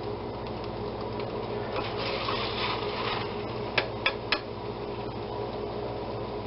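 A metal slotted spoon scraping through cooked potatoes, with three quick clicks of the spoon about four seconds in, over a steady background hum.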